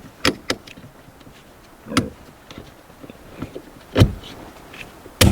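Several sharp clicks and knocks as a transmission shifter cable is worked onto the gear shifter, the loudest about four seconds in.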